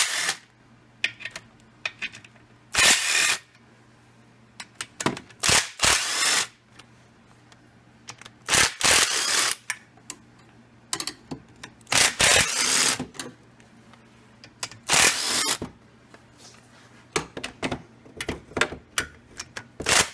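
Socket ratchet on a long extension clicking in short bursts of about half a second to a second, with pauses between, as bolts on the ATV's exhaust guard and recoil starter are backed out.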